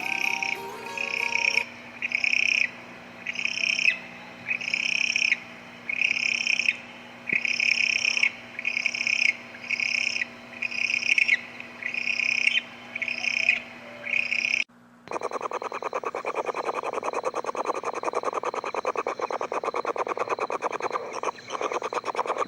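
Animal calls: a high call repeated evenly, about three every two seconds, then an abrupt cut about fifteen seconds in to a dense, fast-pulsing trill.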